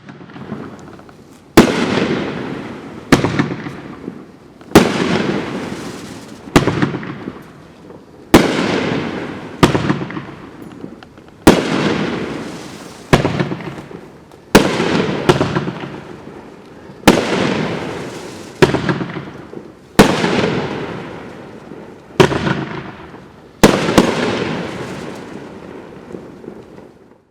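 A Mad OX Shock Treatment 500-gram fireworks cake firing its shots in sequence. Each shot is a sharp bang from the shell bursting, followed by a fading tail of rapid popping from the strobe stars, with a new bang every second and a half to two seconds.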